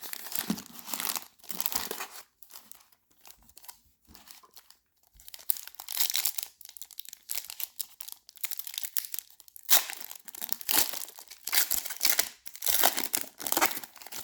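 Plastic wrapping of a trading-card blaster box and its card packs being crinkled and torn open, in repeated rustling bursts that grow louder and busier in the second half.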